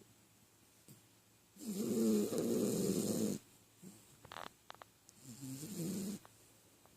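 Yorkshire terrier snoring in its sleep: two rasping snoring breaths, the first longer and louder, with a few faint clicks between them.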